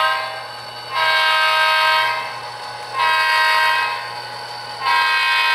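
HO scale model diesel locomotive's sound decoder sounding a multi-chime air horn through its small speaker: blasts of about a second in a long, long, short, long pattern, the grade-crossing signal. A steady low hum runs underneath.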